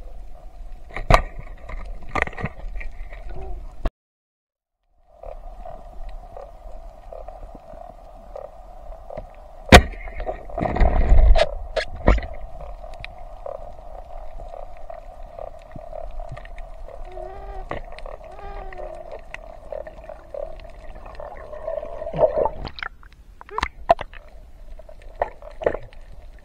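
Underwater camera audio with a steady mid-pitched hum and scattered clicks and knocks. Just before ten seconds in, a sharp crack sounds, most likely the rubber-band speargun firing. A second or so of loud rushing noise follows it.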